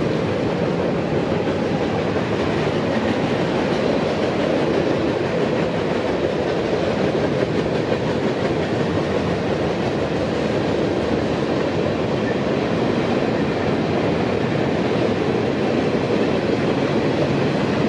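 Freight train cars, covered hoppers giving way to tank cars, rolling past with a steady, even noise of steel wheels on the rails.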